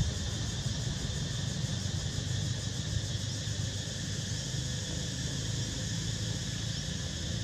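Steady outdoor background noise: a low rumble with an even high hiss over it, and no distinct calls.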